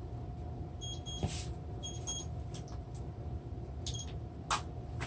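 Smartphone giving three pairs of short high beeps, with two sharp knocks, the louder one near the end as the phone is put down on the tile floor, over a steady low background hum.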